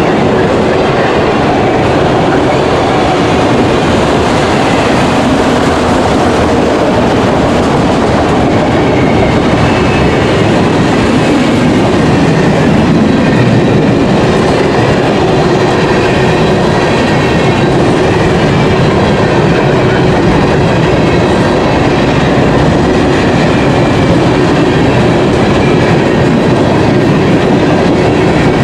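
CN freight train's cars rolling steadily past at close range: a loud, continuous rumble of steel wheels on rail.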